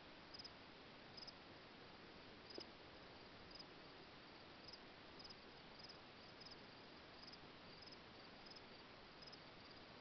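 Faint crickets chirping: short, high-pitched trills repeating irregularly about once a second over a low, steady hiss.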